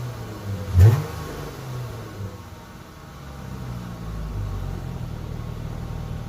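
Chrysler 300S engine, breathing through a new K&N high-flow drop-in air filter, blipped once in a short rev about a second in, then dropping back to a steady idle.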